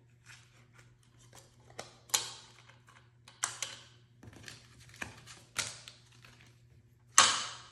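Crisp new US $2 bills being handled and snapped while they are counted: a series of sharp paper snaps and crinkles, about six, with small rustles between. The snap near the end is loud.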